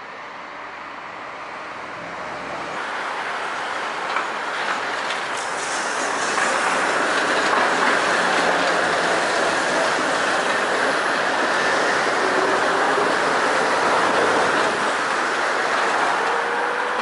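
Tatra tram running along street track, growing louder as it approaches and passes close by: steady rolling noise of steel wheels on rail, with a few sharp clacks early on and a faint whine rising slowly in pitch near the end.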